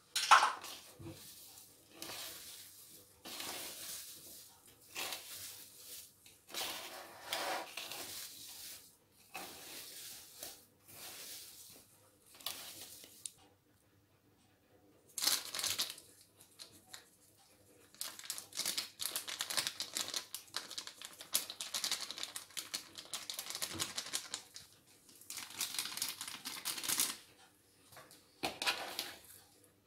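A thin plastic bag of ground cinnamon crinkling and rustling as it is handled and shaken over a plastic bowl of sliced apples, in irregular bursts that become dense and rapid in the second half.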